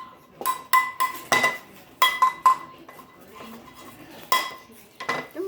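A metal pot banged with a metal utensil, irregular strikes that each ring with the same clear tone, coming in quick groups with a gap in the middle, then two more strikes near the end. This is the noise-making of a pot-banging salute to frontline workers.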